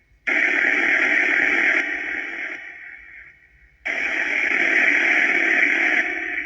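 Necrophonic spirit box app playing white noise through echo and reverb: two bursts of hiss, about three and a half seconds apart, each starting suddenly and fading away over a couple of seconds.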